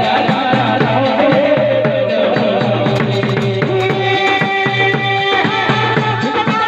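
Indian folk music: a held, gliding melody line over a quick, steady hand-drum beat.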